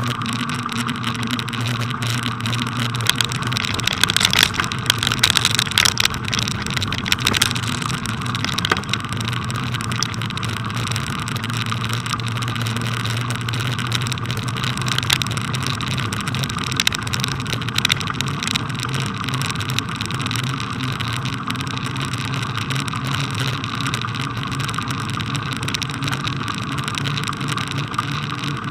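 A bicycle rolling over packed snow, picked up through a loosely fixed bike-mounted camera: a steady rolling drone, with a burst of rattling knocks from bumps a few seconds in.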